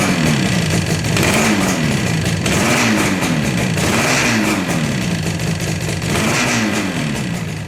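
1977 Yamaha RD400's two-stroke parallel-twin engine on its stock baffled twin exhausts, blipped repeatedly so the pitch rises and falls about every second or so. The head gasket is leaking compression.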